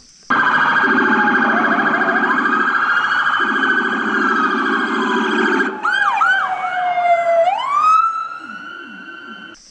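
Police car sirens sounding: a fast warbling yelp over a low blaring tone, then several short rising whoops and a long falling-and-rising wail that fades near the end.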